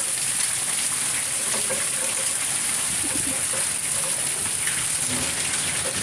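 Steady rain falling: an even hiss with many small drop taps scattered through it.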